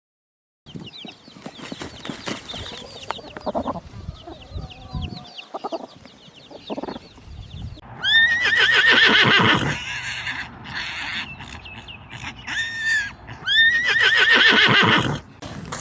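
Chickens clucking with many short high peeps, then a horse whinnying loudly twice, each a wavering call of about two seconds, about eight and fourteen seconds in.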